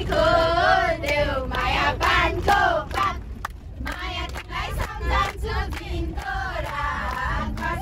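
Several people singing a Nepali dohori folk song together, over the low steady rumble of a moving bus.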